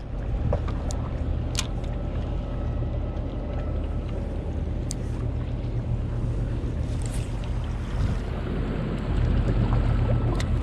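Steady low rumble of a small boat at sea, with wind and water noise and a few sharp clicks and ticks scattered through.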